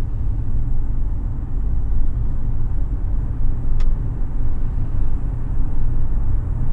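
Steady low rumble of a van driving along a road, its engine and road noise heard from inside. A single light click about four seconds in.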